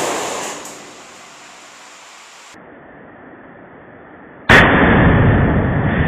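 Lithium-ion battery going into thermal runaway inside a fire containment bag. The ring of a sharp bang dies away in the first second; about four and a half seconds in, another sudden bang breaks into a loud, sustained rush of noise as the cell vents into the bag, slowly fading.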